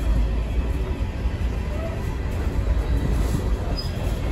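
Empty open-top coal cars of a freight train rolling past at low speed: a steady low rumble of steel wheels on the rails.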